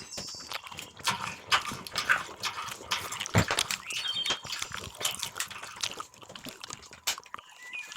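A person eating: chewing and wet mouth sounds, with a busy run of small irregular clicks and smacks.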